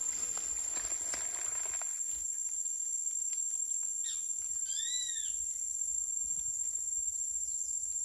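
A steady high-pitched insect drone, cricket or cicada, runs throughout. About five seconds in, one short arched squawk rises and falls, from a parakeet.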